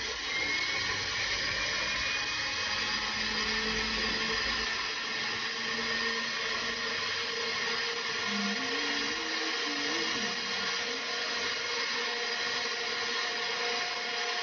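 Jeweller's rotary tool handpiece running steadily while finishing a silver bracelet, its whine rising slightly over the first few seconds and then holding steady.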